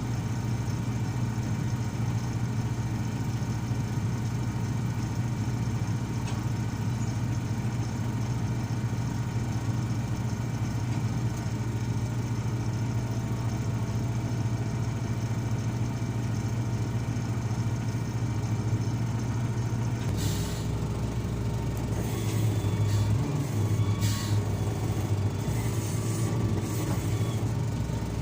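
Komatsu PC220 crawler excavator's diesel engine running steadily under work. About twenty seconds in, several short clanks and hisses join, and the engine note shifts and rises a little.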